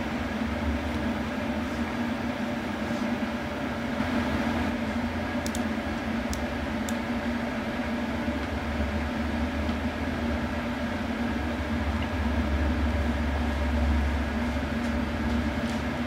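Steady machine hum, like a computer's cooling fans, with several constant tones over a low drone. A few faint clicks come about five to seven seconds in.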